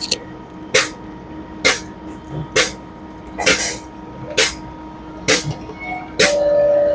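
Sharp hissing spurts repeat at an even pace, about one a second, over the steady hum of an FBD Slurpee frozen-beverage machine. Near the end a steady mid-pitched tone sounds for under a second.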